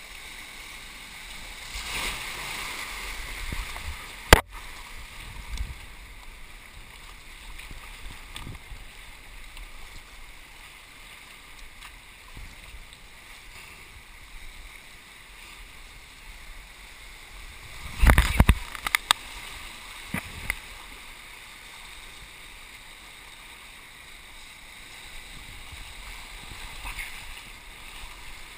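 Whitewater rushing in a river rapid, heard from a camera at water level on a stand-up paddleboard, with water splashing around the board. A sharp knock about four seconds in, and a loud surge of splashing noise about two-thirds of the way through.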